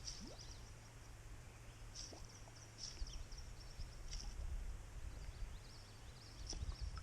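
Quiet riverside ambience: wind rumbling on the microphone in gusts, with short, high chirps from small birds scattered through it.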